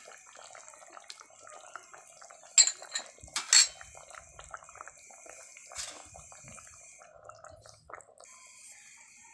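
Fish and cauliflower curry simmering in an aluminium kadai, a faint bubbling, with a few sharp clinks of a utensil against the pan, mostly between about two and a half and three and a half seconds in and once more near six seconds.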